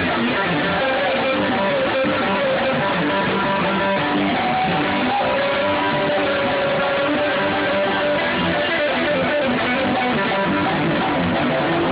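Live bluegrass band playing an instrumental passage: strummed guitar under a fiddle melody that holds long notes and slides between them.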